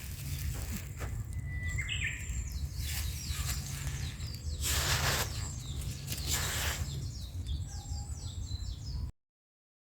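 Small birds chirping and calling outdoors over a steady low rumble, with a few short rustling noises; the sound cuts off abruptly about nine seconds in.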